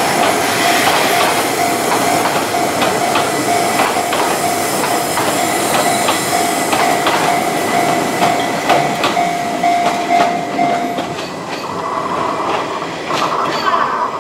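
Keihan Keishin Line electric train passing, its wheels clattering over rail joints in a run of sharp clicks. A steady repeating tone, the level crossing's warning bell, sounds over it and stops about three-quarters of the way through.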